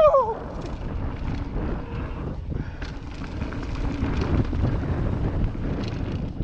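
Mountain bike rolling fast down a dirt trail: wind buffeting the camera microphone over the steady rumble and rattle of tyres and bike on the dirt. A brief high squeal falling in pitch comes right at the start.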